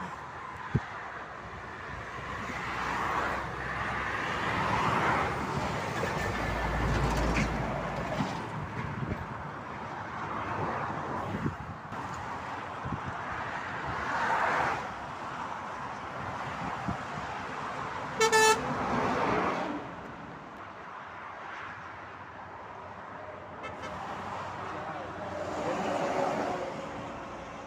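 Road traffic: cars and lorries passing one after another, each swelling and fading. About two-thirds of the way through, a vehicle horn gives one short, loud blast.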